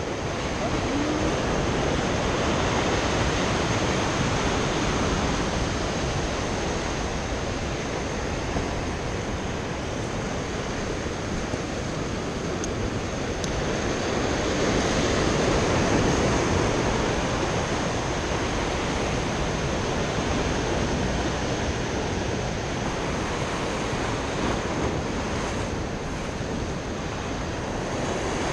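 Ocean surf breaking and washing against a rocky shoreline, a steady rushing that swells and eases, with some wind on the microphone.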